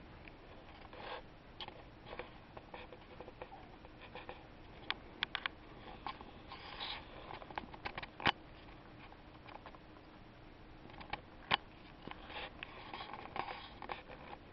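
Cats batting the balls of a tabletop mini pool table: scattered sharp clicks and knocks as the balls strike one another and the rails, with soft scratching and rustling between. The loudest knock comes about eight seconds in.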